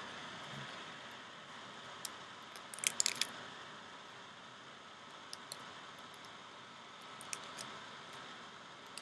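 Small sharp clicks and scrapes of a fork working a thin domed metal screen into a glass vaporizer stem, with a quick cluster of ticks about three seconds in and scattered single clicks after it, over a faint steady hiss.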